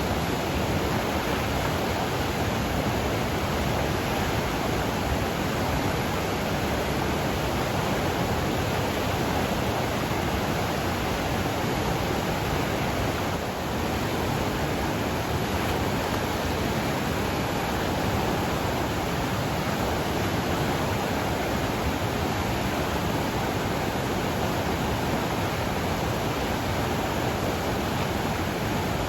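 Mountain river swollen with snowmelt runoff, its water rushing in a steady, dense wash of noise with no breaks.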